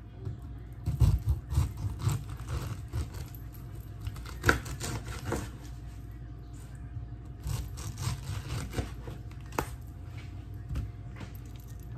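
Knife cutting up a pineapple: irregular sawing and scraping through the rind, with sharp knocks of the blade now and then.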